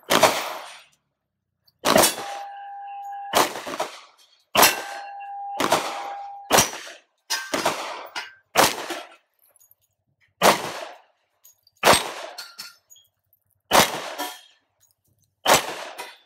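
Glock 29 pistol firing 10mm rounds, about eleven single shots spaced one to two seconds apart. Steel targets clang when hit, the plate ringing on for a second or more after two of the early shots.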